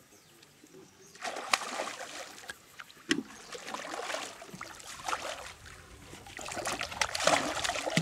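Hooked saratoga thrashing and splashing at the water's surface. It starts about a second in with sharp splashes and grows louder and more continuous near the end as the fish fights close to the boat.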